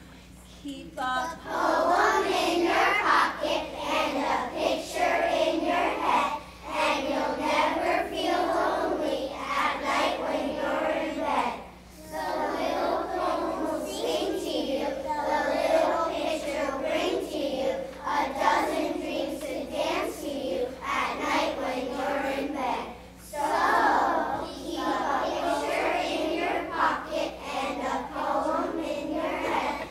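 A chorus of young children singing together in unison, starting about a second in, with short breaks between phrases about a third and two-thirds of the way through.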